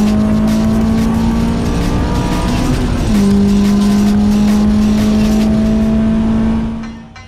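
Honda S2000's four-cylinder engine running at high revs under load, with a gear change about three seconds in where the pitch drops and then slowly climbs again. The sound fades out near the end.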